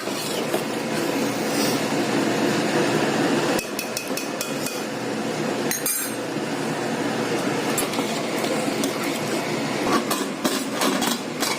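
A metal spoon stirring in a pressure cooker pot, clinking and scraping against its sides, over a steady hiss; the clinks come thicker near the end.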